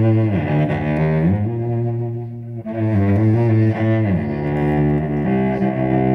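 Solo cello bowed: a held low note under a slow melody, with the pitch sliding down between notes twice.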